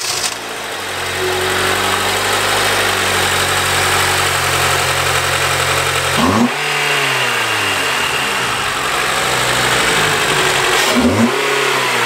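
Honda Civic Si 2.4-litre i-VTEC four-cylinder, fitted with an aftermarket cold-air intake, idling steadily. It is blipped twice, about six seconds in and again near the end, the revs rising quickly and falling back each time.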